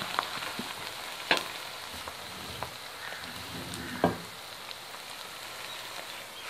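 Chopped onions frying in oil in a metal wok, a steady sizzle, stirred with a wooden spoon that knocks against the pan about a second in and again near four seconds.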